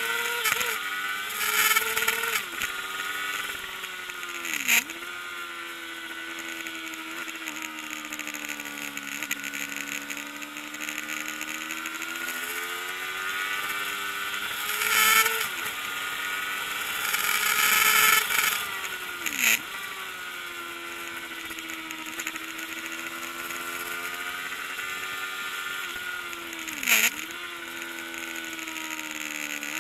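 Kawasaki ZXR400's inline four-cylinder engine at race pace, its revs climbing and falling in long sweeps. Its pitch drops sharply and recovers three times, once at each gear change, and there are several short loud rushes of noise.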